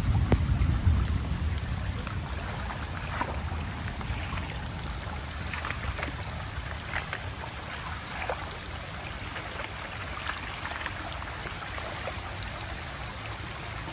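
Muddy floodwater runoff rushing along a shallow channel through grass, with low wind rumble on the microphone, heaviest in the first second or two. Scattered brief splashes come through the flow as dogs wade in it.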